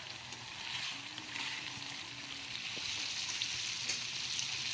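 Bagoong alamang (tiny shrimp paste) sizzling in coconut milk in a pan, stirred with a wooden spatula. The sizzle grows a little louder about halfway through: the coconut milk has nearly cooked off and the oil is separating, the sign the paste is almost done.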